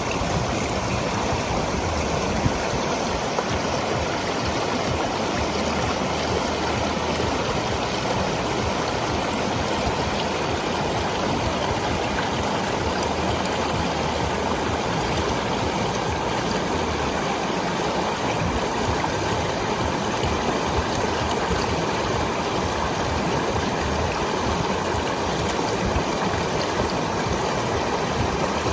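Small waterfall in a stream, the water running and splashing in a steady rush.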